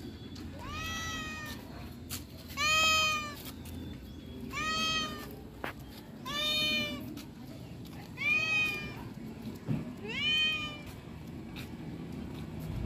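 A domestic cat meowing repeatedly: six drawn-out meows about two seconds apart, each rising and then falling in pitch.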